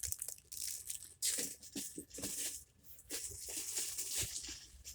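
Plastic packaging crinkling and rustling while small fidget toys are handled, with scattered light clicks and knocks.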